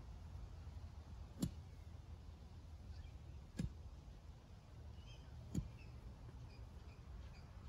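Steel digging bar driven down into a post hole in soil: three sharp strikes about two seconds apart.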